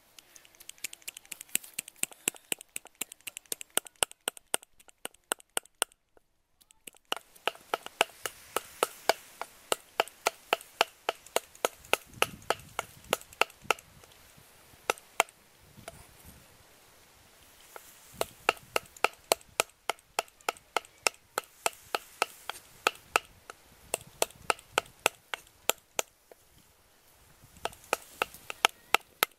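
Cleaver chopping on a wooden chopping block: rapid, sharp chops of about four a second, with a brief pause about six seconds in and a few shorter pauses later.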